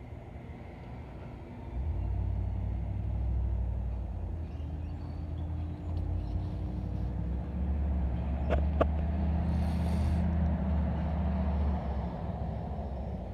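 Low, steady engine rumble of passing road traffic that sets in about two seconds in and eases near the end, with two sharp clicks about eight and a half seconds in and a short hiss of air soon after.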